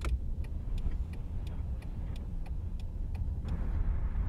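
Car turn-signal stalk clicked on, then the indicator ticking about three times a second over the low hum of the running car. About three and a half seconds in the ticking stops and a louder, steady rushing noise comes in.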